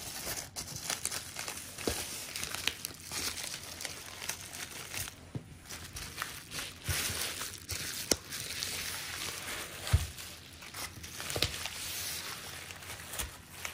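Plastic bubble wrap crinkling and rustling as it is unrolled and handled around a book, with many small irregular crackles throughout.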